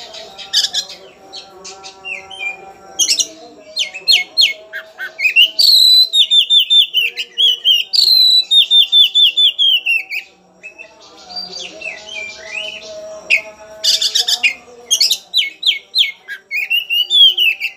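Oriental magpie-robin singing a loud, varied song of sharp chattering notes and trills, with two long falling runs of rapid whistled notes and a short pause about ten seconds in. It is the fierce challenging song of a fired-up male looking for a rival.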